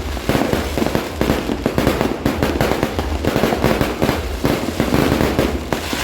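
Aerial fireworks going off in a dense, continuous barrage of rapid bangs and crackles.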